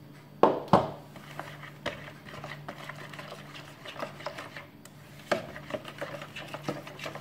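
Metal spoon stirring flour into a thin milk-and-yeast batter in a plastic bowl, with irregular small clicks and scrapes against the bowl. Two sharp knocks of the spoon against the bowl about half a second in.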